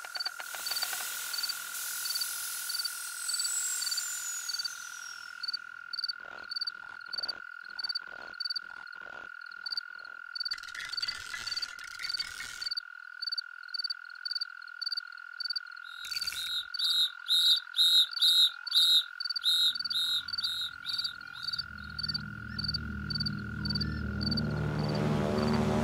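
Frogs croaking in a steady rhythm of short calls, two or three a second, loudest and fastest for a few seconds after the middle, over a steady high tone. A low engine drone of approaching aircraft swells in over the last few seconds.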